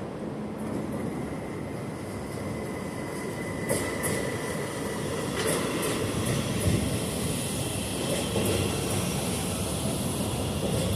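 CTA Pink Line train rolling into the station: a steady rumble of wheels on rail, with a thin wheel squeal for the first few seconds, then sharp clacks over the rail joints as it comes in.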